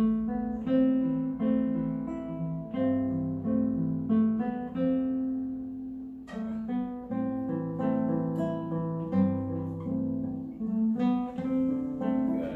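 Nylon-string classical guitar playing plucked melody notes over bass notes. The phrase dies away about six seconds in, then starts again.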